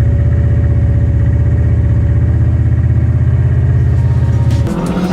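Large engine idling: a deep, rapidly pulsing rumble with a faint steady whine above it, which drops away about 4.7 seconds in as music begins.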